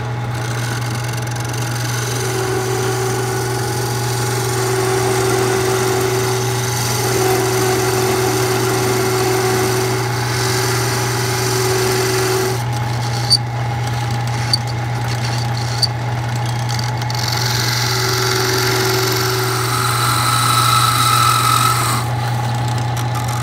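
Craftsman wood lathe's motor running steadily as a parting tool cuts grooves into spinning maple, the cutting adding a tone that comes and goes in stretches of a few seconds. Three sharp clicks about a second apart come midway.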